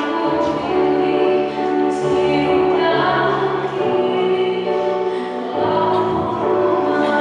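A choir singing in harmony, holding chords that change every second or so over low sustained notes.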